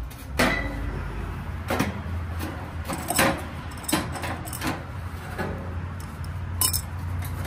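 Metal tools and hardware clinking and knocking in sharp, irregular strikes, several over a few seconds, over a steady low hum.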